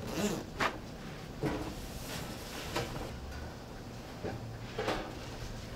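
A handful of short, light knocks and rustles from hands at work: a paper towel pulled off its roll near the start, then light taps against a stainless steel pan.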